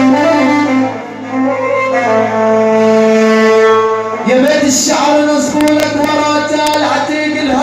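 Arabic ataba music between sung lines: long held melodic notes over a steady low drone, giving way about four seconds in to a busier passage with quicker notes.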